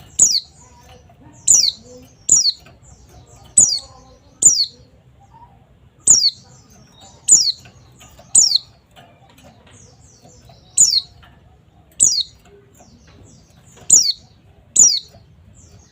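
White-eye (pleci) giving short, high, downward-slurred calls, about a dozen spaced irregularly roughly a second apart.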